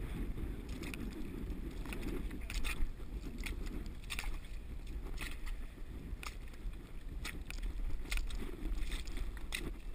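Scrabbling and squelching in wet mud while climbing a slippery mud bank: irregular sharp scrapes and slaps over a steady low rumble.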